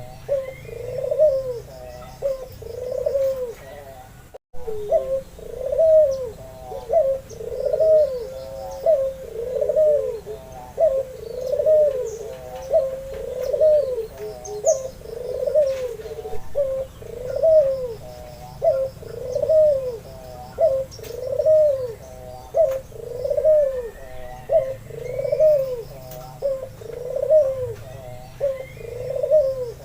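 White albino puter dove cooing over and over, a string of low arched coos at about one a second. Faint chirps of small birds sound in the background.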